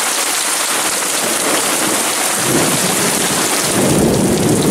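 Heavy rain pouring down steadily in a thunderstorm. A low rumble of thunder rolls in about halfway through and swells near the end.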